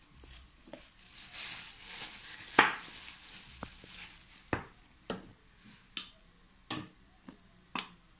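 A metal spoon scooping flour and tapping against a plastic mixing bowl: about nine sharp taps, the loudest about two and a half seconds in.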